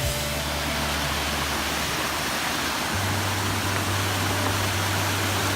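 Steady, even rushing of falling water from a waterfall.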